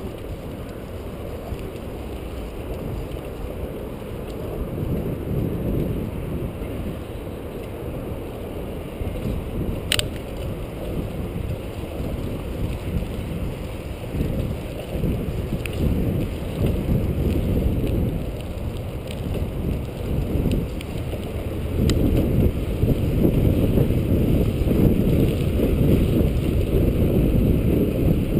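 Wind buffeting a microphone on a moving bicycle, with low rumble from riding over the paved trail; the wind grows louder in the last third. One sharp click about ten seconds in.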